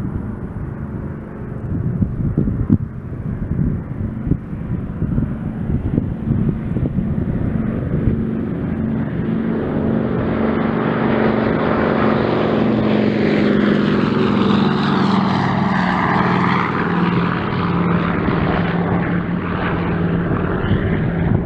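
Multi-engine radial piston warbird taking off at full power, its engine drone swelling about halfway through as it lifts off and climbs out. Wind buffets the microphone at the start.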